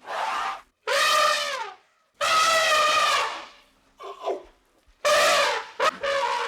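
An animal calling over and over: about five short, pitched calls, each under a second long, some sliding in pitch, with brief gaps between them.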